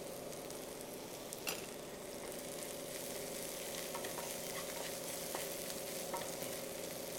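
Chopped shallots, green chillies and whole spices sizzling in hot oil in a non-stick frying pan while a spatula stirs them, with a few light taps of the spatula on the pan, the sharpest about a second and a half in. The onions are being sautéd until they soften.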